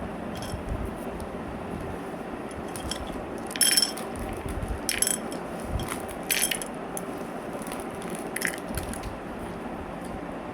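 Chocolate bar wrappers being handled: four short, crisp crinkles spaced a second or two apart, the first the loudest, over a steady background hum.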